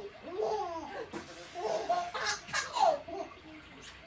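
Toddlers laughing and giggling, with babbling in between; the loudest laugh, a high one, comes near three seconds in.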